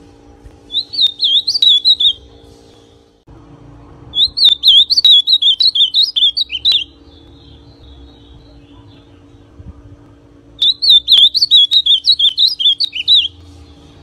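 Ultramarine grosbeak (azulão), a young male still partly brown, singing three short warbled phrases a few seconds apart, each two to three seconds long. A faint steady hum lies underneath.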